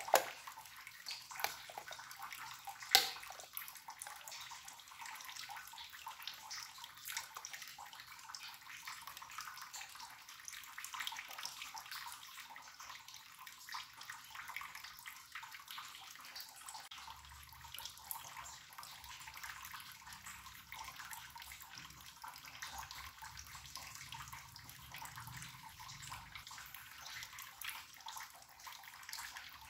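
Pull-tab lid of a can of chocolate sweetened condensed milk snapping open once, sharply, about three seconds in. After it only a faint steady hiss with light crackles remains while the thick milk is poured slowly into the pot.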